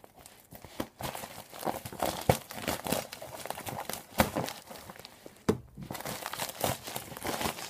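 Plastic mailing bag crinkling as it is handled and cut open with scissors, with a few sharp clicks; the loudest come about two and four seconds in.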